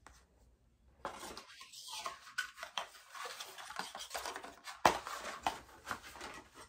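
Rustling of packaging as Dyson Airwrap attachments and their wrapping are handled, starting about a second in. Small clicks and knocks run through it, with one sharp click about five seconds in.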